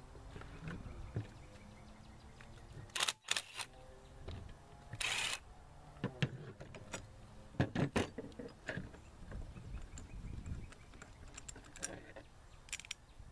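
Scattered metal clicks and clinks of a socket, bolts and tools being handled while unbolting the water outlet from a cylinder head, with a short burst of noise about five seconds in.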